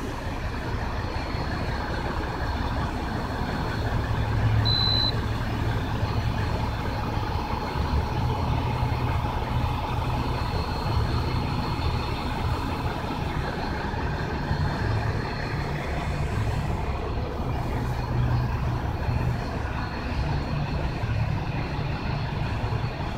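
Electric motor and propeller of an FMS J-3 Cub RC model airplane droning steadily in flight over a low rumble, with a short high beep about five seconds in.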